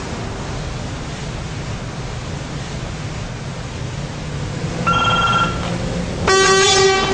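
Steady road and engine noise from a moving car. About five seconds in there is a short high tone, and about a second later a loud car horn blast lasting just over a second as a pedestrian crosses in front.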